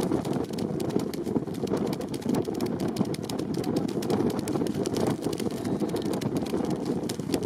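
Strong wind buffeting the microphone in a blizzard: a dense, rumbling roar with rapid crackling throughout.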